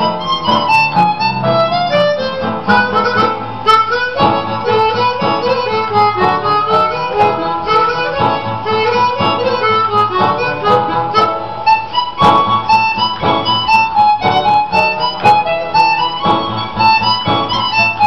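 Music: a harmonica playing a melody over an accompaniment.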